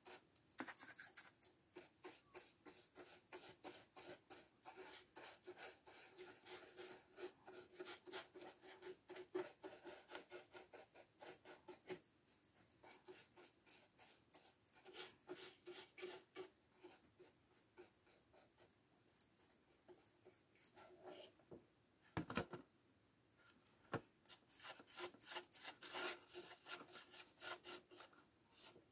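Paintbrush working acrylic paint onto a plastic coffee container: a fast, uneven run of faint soft ticks and scratches, with two short pauses past the middle.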